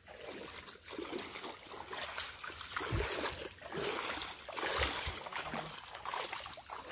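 Bare feet splashing and sloshing through a shallow muddy stream as several people wade along it. A couple of low thumps stand out about three and five seconds in.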